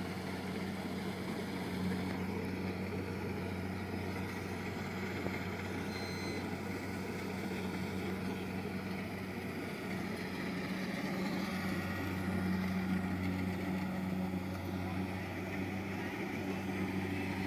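Compact rice combine harvester running steadily while it harvests, a steady engine hum that grows a little louder about twelve seconds in.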